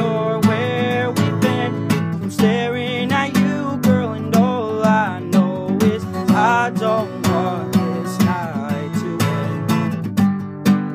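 Acoustic guitar strummed steadily, with a man singing along over it.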